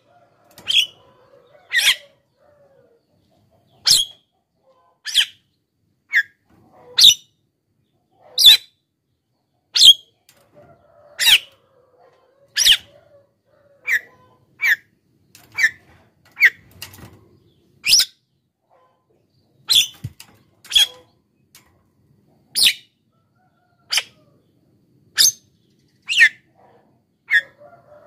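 A Javan myna giving short, sharp, high calls, one every second or so, with a few longer pauses between them.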